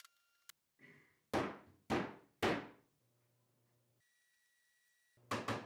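Three solid knocks about half a second apart, a mallet striking the wooden case parts to seat its glued joints, followed near the end by the start of a quicker series of knocks.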